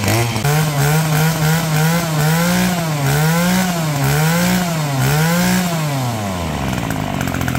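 Maruyama 26cc brush cutter engine running, revved up and held for about two seconds, then throttled up and down four times about once a second, and dropping back to idle near the end.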